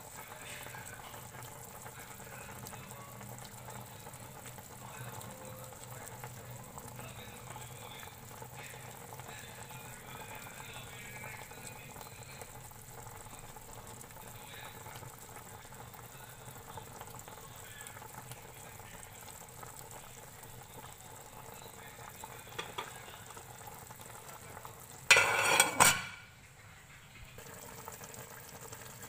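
Pork hock stew boiling in a large pot, a steady bubbling hiss. About four seconds before the end, a loud burst of noise lasting about a second cuts across it.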